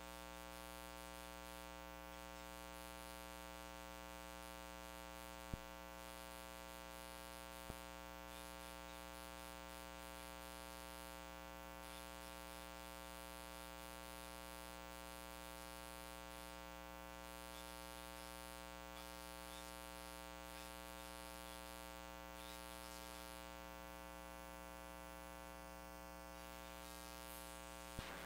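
Steady electrical mains hum and buzz from the audio line, a low drone with many overtones. It is broken only by two brief clicks a few seconds in.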